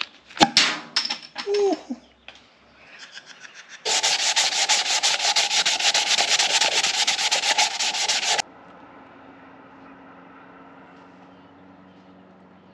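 A power tool rasping against wood for about four and a half seconds, with a fast pulsing grind, starting and stopping abruptly. A few knocks come before it, and a faint steady hum follows.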